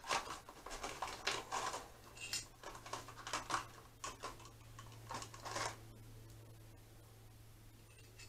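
Small metal screws rattling and clicking in a plastic tub as a hand rummages through them, in quick clusters that stop about six seconds in.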